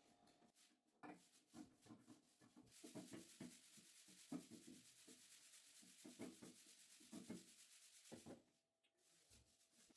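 Faint rubbing and scraping with scattered light knocks, and a steady hiss from about three seconds in until about eight seconds.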